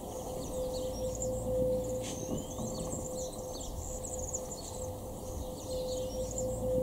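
Small songbirds chirping and singing, with a phrase of rising whistles that comes twice, over a steady low hum.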